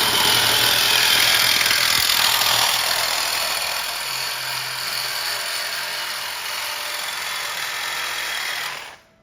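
Power tool cutting through a steel car exhaust pipe, a loud steady cutting noise that stops suddenly near the end.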